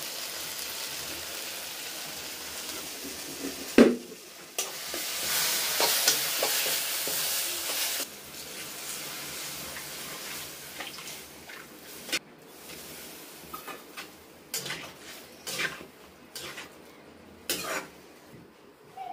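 Brinjal and spices sizzling in a steel kadai on a gas stove while a metal spatula stirs and scrapes. A sharp clank comes about four seconds in, then the sizzling grows louder for a few seconds before settling into quieter cooking with scattered knocks of the spatula against the pan.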